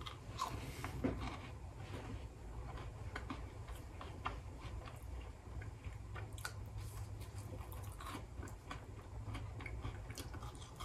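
A person biting into a baked cookie made from refrigerated dough and chewing it: faint, scattered chewing clicks over a steady low hum.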